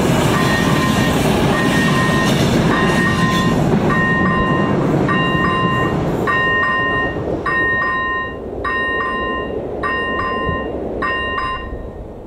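Electronic level-crossing bell (AŽD ZV01) ringing with a repeated ding a little over once a second, while passenger coaches roll over the crossing. The train noise fades out after about six seconds, and the bell stops near the end as the crossing switches off after the train has cleared.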